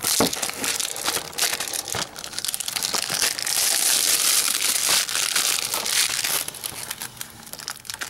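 Plastic shrink wrap being torn and crumpled off a Blu-ray case: dense crinkling and crackling, most continuous a few seconds in.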